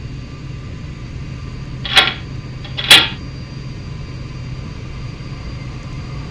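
Steady low airliner cabin hum, with two sharp knocks about a second apart.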